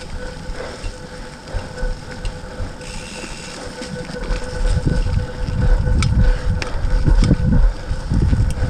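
Rumbling noise of a mountain bike ride picked up by a GoPro: wind and jolts on the microphone under a faint steady whine, getting louder from about halfway.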